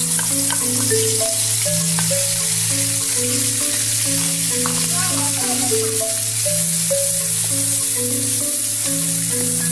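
Ground red chili and tomato sambal paste sizzling in hot oil in a frying pan, just added and stirred with a wooden spatula near the end, over background music of steady low notes.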